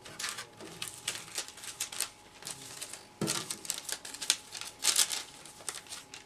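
Thin plastic packaging film crinkling and rustling as it is handled, with irregular clicks and handling knocks; louder crackling bursts about three and five seconds in.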